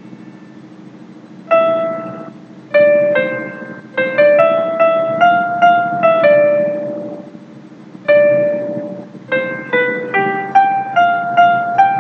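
MuseScore's software playback of a single-line melody in a piano sound, one note at a time in short phrases with brief pauses between them. A steady low hum runs underneath.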